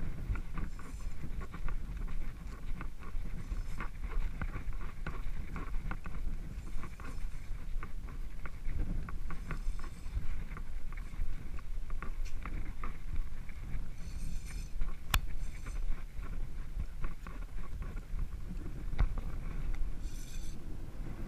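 Wind rumbling steadily on the camera microphone, with scattered light clicks and several brief high-pitched sounds spread through.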